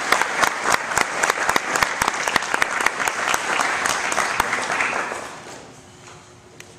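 Audience applauding, the clapping fading out about five seconds in.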